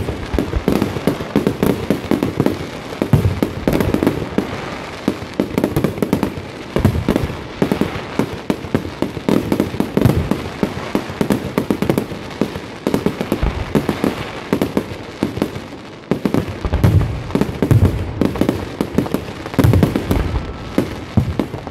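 Fireworks display: aerial shells and batteries bursting in a dense, continuous barrage, with rapid overlapping bangs several times a second.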